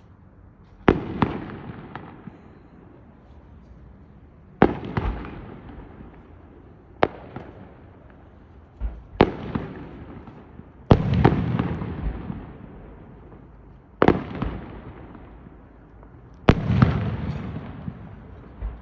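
Fireworks display bursting: about eight sharp bangs a few seconds apart, each trailing off over a second or two.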